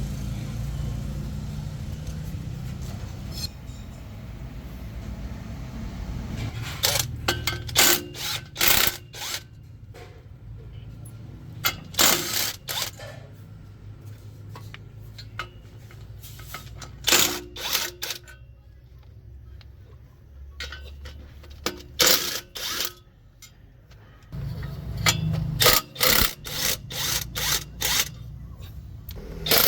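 Repair work on a heavy truck: short clusters of sharp metallic knocks and rattles, a few seconds apart, over a low hum that fades after about six seconds.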